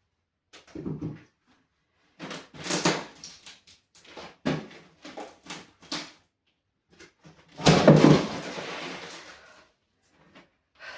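Old wooden floorboards being pried up and handled: irregular knocks and scrapes of wood, with one loud crash of boards nearly eight seconds in.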